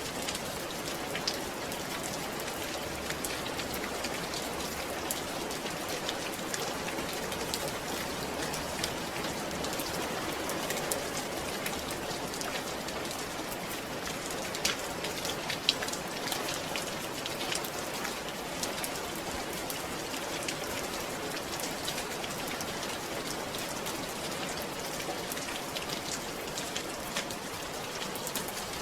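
Steady rain falling, an even hiss with many small drops pattering on a surface.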